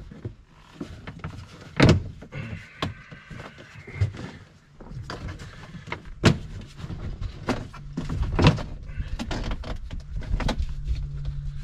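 Plastic dash panel of a John Deere Gator RSX being worked loose by hand: a series of sharp plastic clicks and knocks as its plastic hangers pop free, with plastic rubbing in between. A low steady hum comes in over the last few seconds.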